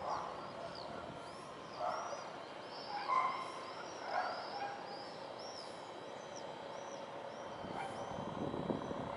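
Birds calling: a rapid run of short, high chirps, with a few louder, lower calls about two, three and four seconds in.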